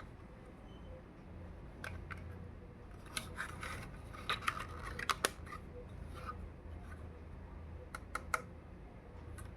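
Hands unboxing a toy makeup kit: small plastic pieces and packaging handled, giving irregular light clicks and crinkles that bunch up in the middle, with a few more sharp clicks near the end.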